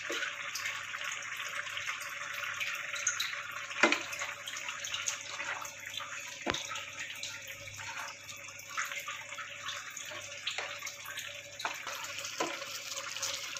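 Onion-and-cashew korma gravy boiling in a frying pan, a steady bubbling hiss, with a few light knocks of a wooden spatula and boiled eggs against the pan, the sharpest about four and six and a half seconds in.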